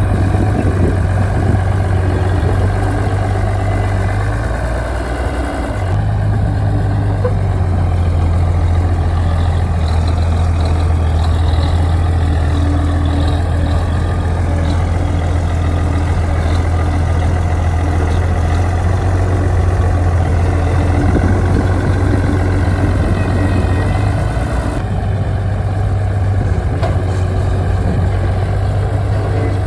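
Heavy diesel engine running steadily with a deep, constant hum; the sound shifts abruptly about six seconds in and again near the end.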